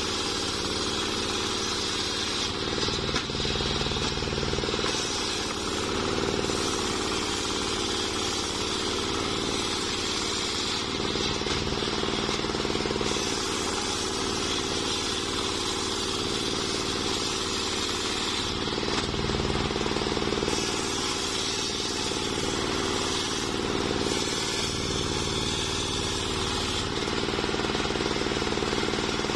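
Homemade engine-driven table circular saw running steadily while a waru log is pushed through the blade and ripped into slabs: the engine drone and the blade cutting wood together.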